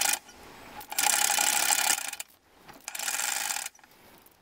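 Steel chain around a timber pole being worked, giving bursts of rapid metallic ratcheting clicks: one ends just after the start, then two more strokes about a second long, a second apart.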